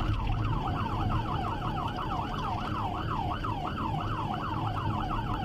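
Police car siren in fast yelp mode, sweeping up and down about four times a second, over a steady low rumble.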